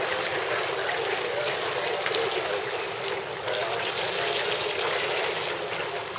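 Steady splashing and churning of pool water from swimmers kicking with fins and stroking, with a few sharper splashes.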